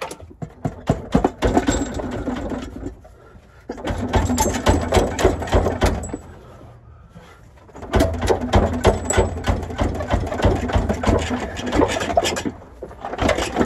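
Power tool running in four bursts of a few seconds each, a rapid mechanical rattle, working the bolts of a 4L60E automatic transmission during its removal.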